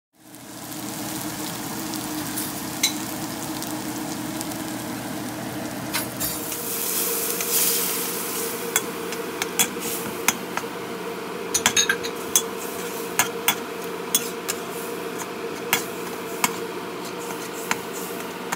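Diced peppers, green onion and dried chilies sizzling in a hot steel wok while a metal spatula stirs them, with many sharp clicks and scrapes of the spatula against the wok. About seven seconds in the sizzling swells as a dark sauce goes into the wok.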